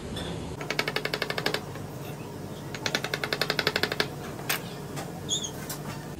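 Chef's knife rapidly chopping garlic on a plastic cutting board: two quick runs of about ten chops a second, then a couple of single knocks of the blade.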